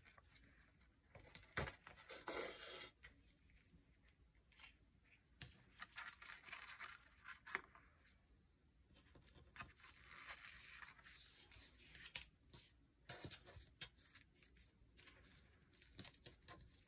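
Faint rustling and scraping of paper pages being handled while waxed linen thread is drawn through the sewing holes, with a few light taps and clicks and several short drawn-out rustles.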